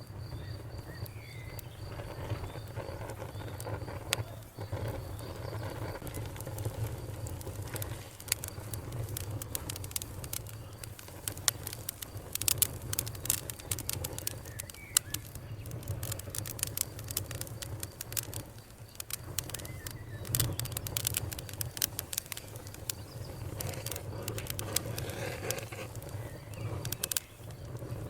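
Wood fire crackling, with irregular sharp pops and snaps over a steady low rumble. The pops are thickest in the middle and again near the end.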